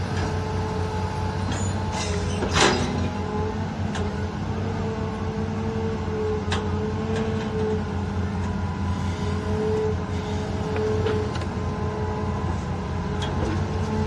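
Hitachi crawler excavator's diesel engine running under load while the bucket digs and lifts soil, with a steady whine over the engine rumble. A single sharp clank about two and a half seconds in.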